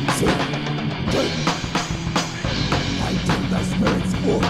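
Rock music with a driving drum beat and guitar.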